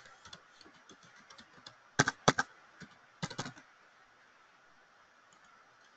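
Typing on a computer keyboard: a run of light, irregular keystrokes, then a few louder key clicks about two and three and a half seconds in.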